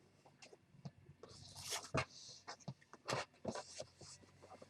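Cardboard delivery box being opened and handled: scattered light taps and knocks, with a couple of brief scraping rustles of cardboard and packaging.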